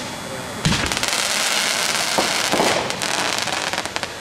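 Aerial fireworks going off: one sharp bang about two-thirds of a second in, then dense crackling with a couple more pops for about two seconds, dying away near the end.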